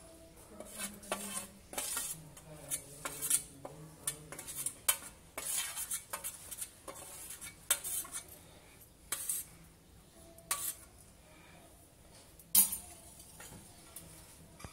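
A steel spoon scraping and clinking against a steel plate as spices are scooped off it into a ceramic bowl of gram flour, in many short irregular scrapes and taps. A single louder clank comes about two-thirds of the way through.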